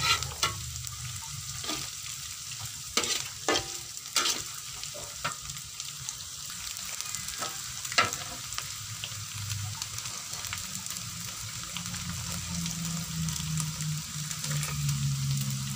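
Fried anchovies and sliced green and red chilies sizzling in a wok while being stir-fried with a metal spatula, the spatula scraping and knocking against the wok several times in the first half, the sharpest knock about eight seconds in. A low hum runs underneath and grows near the end.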